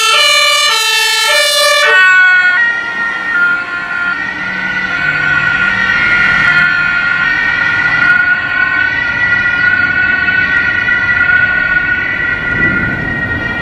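German two-tone emergency siren (Martinshorn) on a fire-service van, stepping between a high and a low note as it passes. After about two seconds it settles into a steadier high wail that carries on as the van drives away, over road and engine noise.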